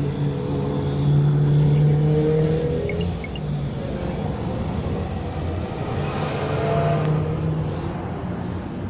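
Cable-car gondola running along its cable: a steady mechanical hum and rumble with a few low tones, loudest for a couple of seconds near the start as the cabin passes a support tower.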